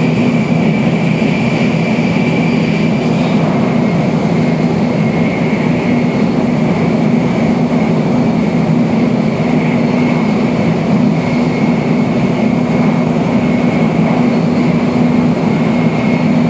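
Shinkansen bullet train running at speed, heard from inside the passenger cabin: a steady, even low rumble with a faint high whine above it.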